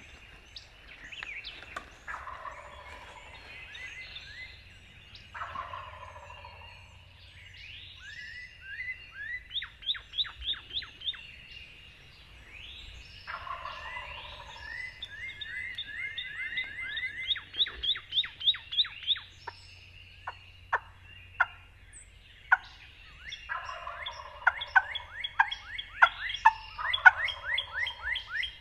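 A wild turkey gobbler gobbling about four times, over songbirds singing runs of quick, sharp sweeping notes that are the loudest sounds.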